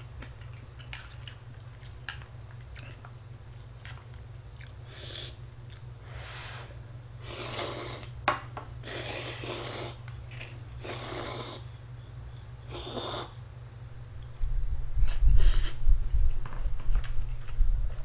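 Instant ramen noodles slurped from a bowl in about six long slurps, followed near the end by a louder low rumble and thumps of chewing close to the microphone, over a steady low hum.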